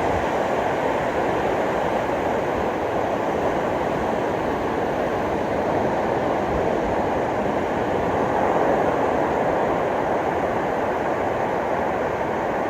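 Steady wash of ocean waves breaking on a beach, an even, continuous surf noise.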